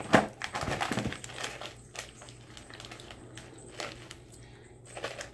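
Snack wrapper crinkling and crackling in the hands, busiest in the first second or so, then fainter scattered crackles.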